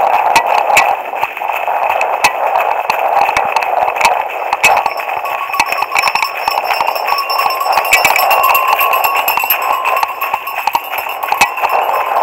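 Running on a gravel track: a steady rush of jostling and wind noise with many sharp clicks from footsteps and trekking-pole tips striking the ground. From about five seconds in, faint ringing tones sound over it.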